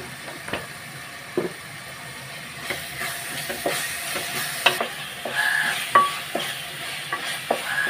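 Wooden spatula stirring and scraping a thick onion and spice paste frying in oil in a metal pressure-cooker pot, with frequent knocks of the spatula against the pot over a frying sizzle that grows louder about three seconds in.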